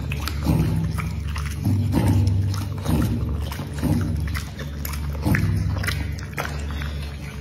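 A bully-breed dog chewing soft mango flesh with wet, smacking bites, about two a second.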